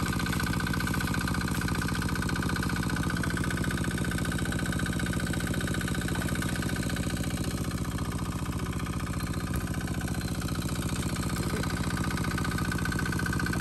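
Small engine running steadily at a constant speed, with a fast, even beat.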